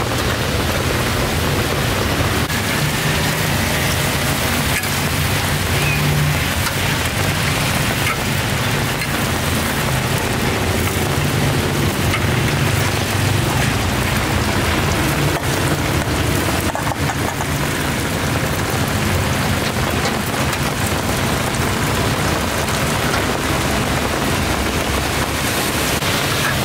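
Hot oil sizzling steadily as small insects deep-fry in a wide wok, a dense rain-like crackle, with a low steady hum underneath.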